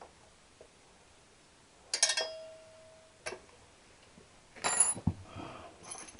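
Metal hand tools clinking. About two seconds in comes one sharp clink that rings briefly, a second later a lighter tick, and near the end a rattle of tools being handled.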